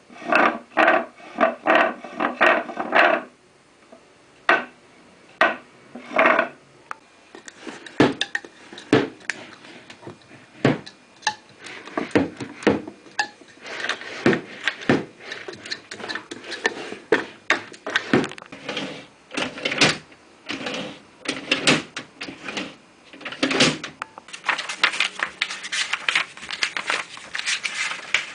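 Household objects being struck and knocked: an irregular run of sharp taps, knocks and clatters. A quick string of ringing, pitched hits comes first, and a denser clatter follows near the end.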